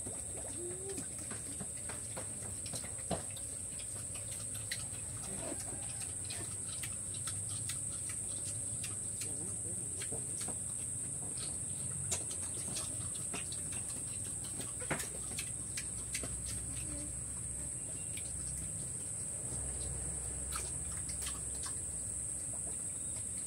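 A steady high-pitched insect drone, with scattered light clicks and taps of piglets' trotters on a concrete floor.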